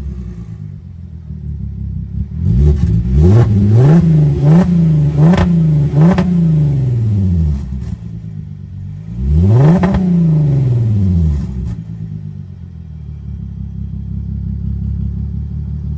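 VW Atlas 3.6 VR6 engine revved on an open, straight-piped exhaust with the muffler off: idling, then a quick run of about five throttle blips, idle again, then one more single rev near the middle.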